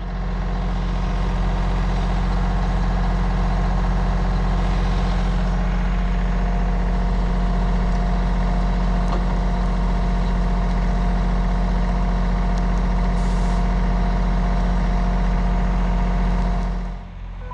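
Rural fire truck's diesel engine running steadily close by: a loud, even low hum with a faint steady whine above it, dropping away suddenly near the end.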